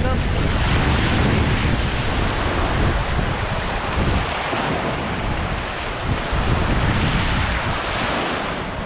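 Shore-break surf washing in and out over the sand, with wind buffeting the microphone in low gusts.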